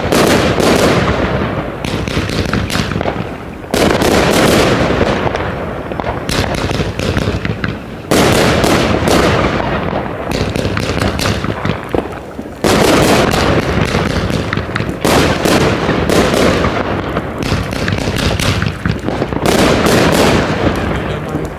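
Category F2 consumer firework cakes (batteries) firing a dense, continuous barrage of launches and bursting shots with crackling. It comes in waves, with a fresh loud volley after brief lulls roughly every four seconds.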